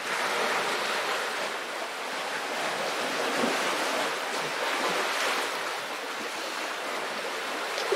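Small sea waves washing against shoreline rocks: a steady wash of water that swells and eases a little, with some wind on the microphone.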